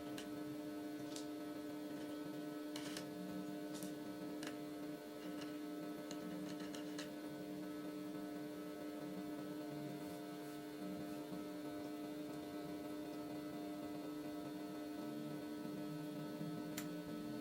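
Steady electrical hum, with scattered light clicks through the first several seconds and one more near the end.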